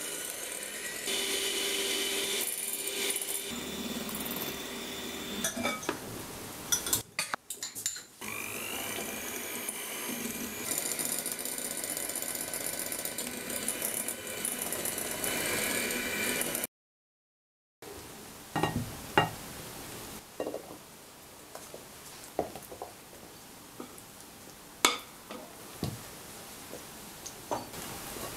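Electric hand mixer with twin wire beaters running steadily in a glass bowl, beating eggs and sugar into a batter, with a brief break about seven seconds in. After a short gap, scattered clinks and knocks as batter is scraped and spooned from the bowl into a bundt pan.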